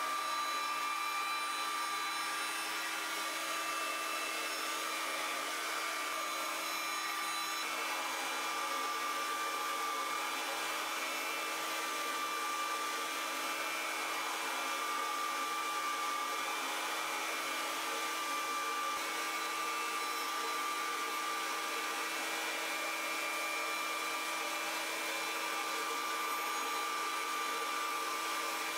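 SCM Morbidelli N100 CNC router running steadily as it machines MDF: an even spindle whine over the rush of the machine's dust extraction.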